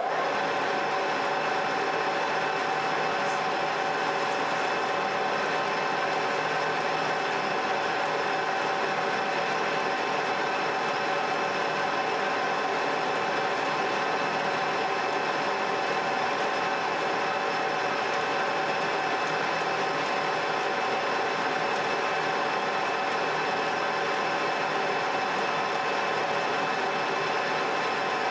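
Metal lathe running steadily with a steady whine, its chuck turning a Dunlop disc-brake piston while the cutting tool is hand-fed slowly into the work.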